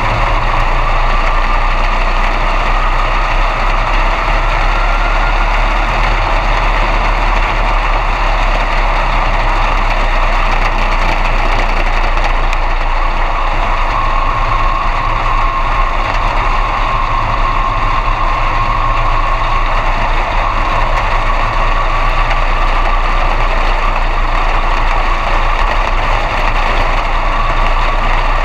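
B-Mod dirt-track race car's engine idling, heard from inside the cockpit as a loud, steady drone with a thin whine that rises a little in the first few seconds and then holds.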